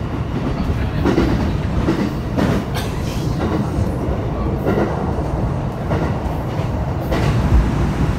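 Cabin noise of a JR West 227 series 1000 electric multiple unit running at speed: a steady low rumble with occasional short knocks. A few stronger low thumps come near the end.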